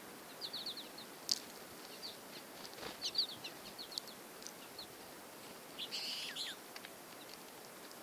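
Small songbirds chirping in quick runs of short, high notes, with a louder cluster of calls about six seconds in and a couple of faint clicks.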